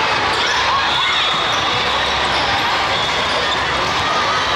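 Steady din of a hall packed with volleyball courts: volleyballs being bounced and hit, under many overlapping voices.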